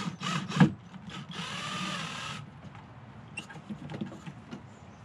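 A few clicks and a sharp knock, then a Ryobi cordless drill/driver runs for about a second, driving a screw for a metal bolt latch into the wooden rabbit hutch. Faint taps follow.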